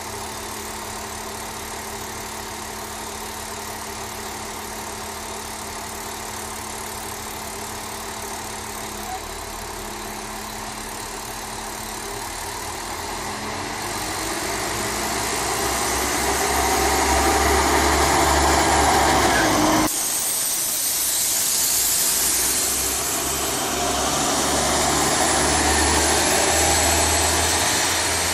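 Diesel engine of a 222M railbus (SA140) idling steadily, then revving up and growing much louder as the train pulls away and accelerates past. About two-thirds through, the engine sound cuts off for a moment and then picks up again.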